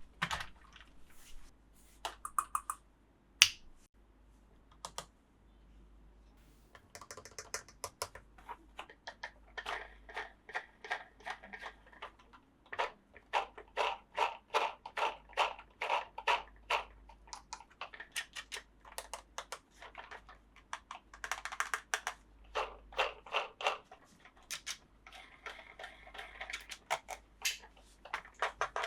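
Small plastic toy parts and packaging being handled, making short sharp clicks and taps, a few scattered ones at first, then dense runs of several a second with brief pauses.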